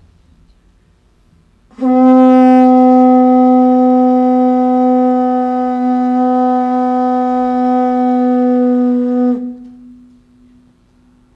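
A ceremonial horn blown in one long, loud, steady note. It starts about two seconds in, holds for about seven and a half seconds and stops sharply.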